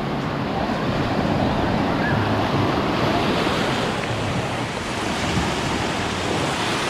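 Black Sea surf washing up on the shore in a steady rush, with wind buffeting the microphone.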